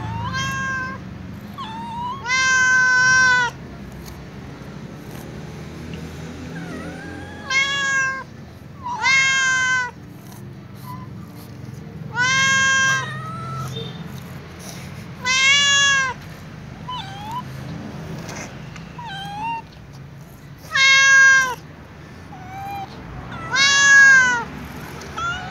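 Calico cat meowing over and over to beg for food: about seven loud, drawn-out meows, each about a second long and rising then falling in pitch, with shorter, quieter mews in between.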